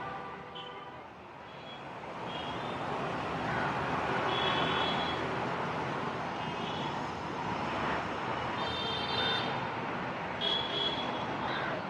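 Street traffic noise: a dense, steady rush of vehicles that swells about two seconds in, with short high-pitched tones, such as horns, sounding every second or so.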